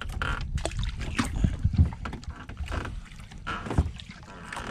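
Knocks and bumps against a small fishing boat, over a low rumble of handling noise and wind on the microphone. There are a few sharp knocks between one and two seconds in and another just before four seconds.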